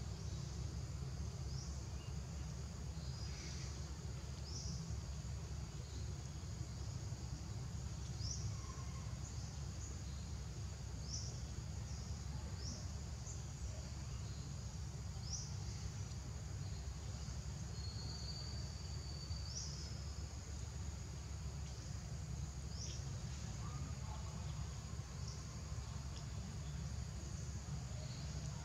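Outdoor insect drone, steady and high, with short high rising chirps every second or two over a steady low rumble.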